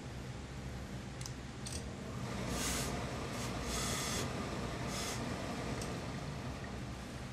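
Steam iron hissing in several short bursts as it presses the hem of a suit jacket, over a steady low hum. Two light clicks come just before the first burst.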